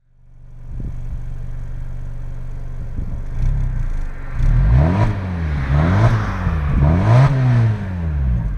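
Exhaust of a 2016 Mazda 3's 2.0-litre four-cylinder petrol engine, idling steadily and then blipped up three times in quick succession, each rev rising and falling back.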